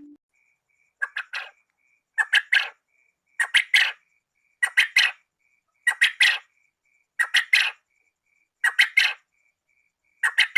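Quail call: a group of three quick notes, repeated evenly about every 1.2 seconds, with faint regular pips at one pitch between the groups.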